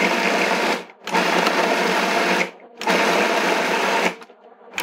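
Food processor motor pulsing, chopping cooked chicken into small pieces: three runs of a second or so each, each cut off sharply and restarted after a short pause.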